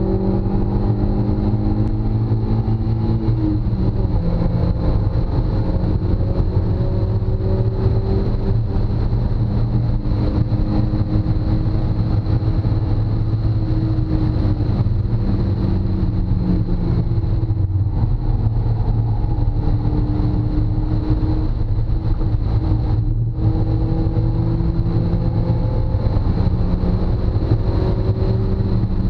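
Mazda Miata's four-cylinder engine pulling hard on track, heard from inside the cabin. Its pitch climbs, drops at a gear change about three seconds in, climbs again through the middle, then eases off with two brief lifts later on, over steady road and wind noise.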